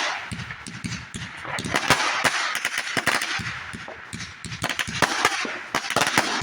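New Year fireworks going off in a rapid, irregular string of sharp bangs and crackles, coming in several clusters.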